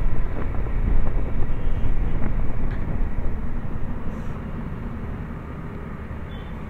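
Riding sound of a KTM Duke 200 single-cylinder motorcycle: engine and wind rush at speed. It grows quieter from about four seconds in.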